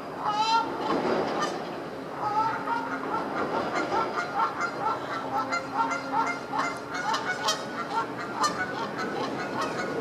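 A pair of Canada geese honking: one loud honk about half a second in, then a long run of quick repeated honks, about three a second, until near the end.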